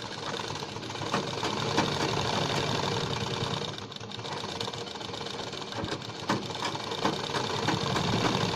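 Black FARAZ domestic sewing machine running steadily as it stitches along a folded, curved fabric edge. It eases off briefly about four seconds in, then runs on.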